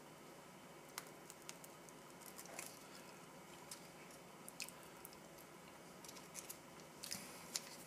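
A plastic utensil spreading cheese spread onto a flat wheat snack bread: faint scrapes and a few soft ticks scattered through, over quiet room tone.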